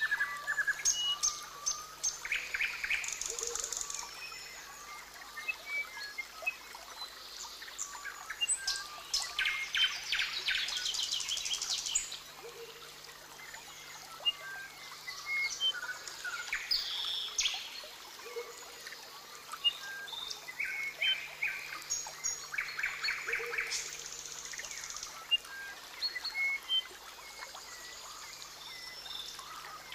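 Rainforest ambience of many birds calling at once: short chirps, fast trills and whistled notes overlapping, with a low call repeating every few seconds.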